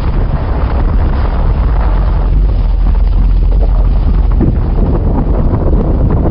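Loud, steady rushing noise with heavy wind buffeting on the microphone, strongest in the low rumble.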